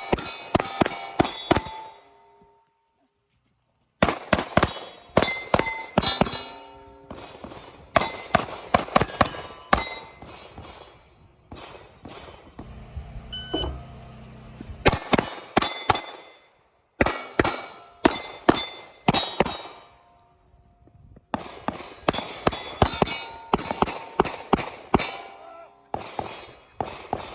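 Strings of rapid pistol shots, each string a quick run of sharp cracks with steel targets ringing on the hits. The strings are broken by several abrupt cuts to silence.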